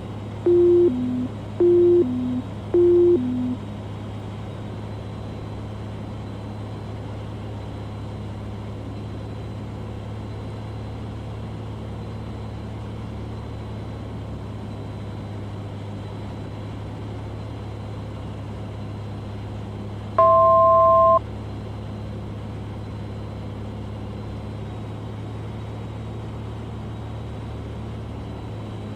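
Cessna 182 single-engine piston aircraft droning steadily on approach. Near the start come three two-note electronic beeps, each a higher note dropping to a lower one, and about twenty seconds in a single electronic tone sounds for about a second.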